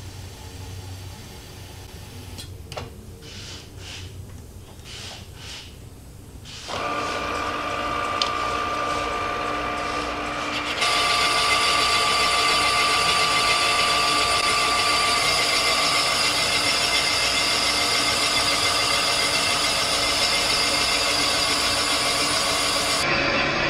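Rottler cylinder boring bar cutting a bore in a V8 engine block. A few faint clicks come first. About a third of the way in the machine starts with a steady whine of several tones, and it gets clearly louder about halfway through and holds there.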